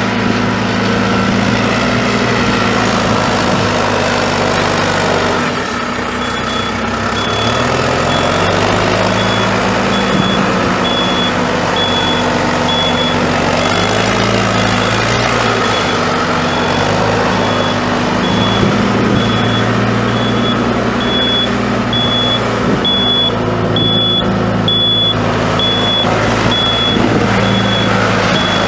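A John Deere 210LE landscape tractor's 4.5-litre four-cylinder turbo diesel running, its engine speed rising and falling several times. From about six seconds in, a backup alarm beeps steadily about once a second.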